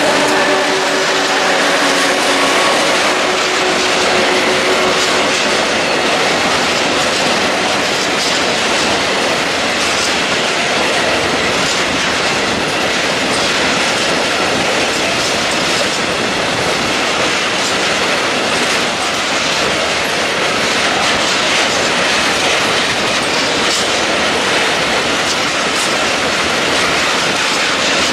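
A long freight train of hopper wagons rolling past close by, steel wheels clattering over the rail joints in a dense, continuous rhythm. The class 232 'Ludmilla' diesel locomotive's engine drone is heard fading away over the first few seconds as it moves on.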